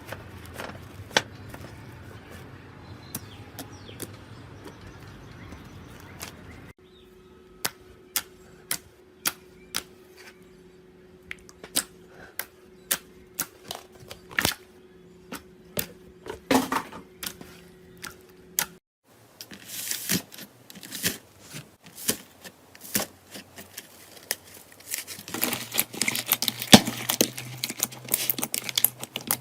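Slime being pressed, poked and stretched by hand, making sharp sticky clicks and pops. At first they come one by one, about every half second, then they thicken into dense crackling near the end.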